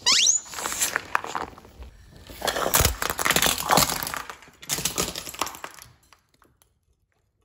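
A rubber squeaky dog toy gives one short squeak that rises sharply in pitch as a car tyre presses down on it. Then a white plate cracks and shatters under the tyre in a run of sharp cracks and snaps, loudest in the middle, with pieces clattering on a hard stone floor.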